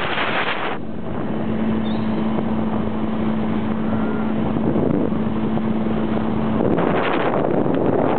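Outboard motor of a fishing boat running at a steady speed, a steady hum. The wind rush on the microphone drops away about a second in, leaving the engine clear, and comes back near the end.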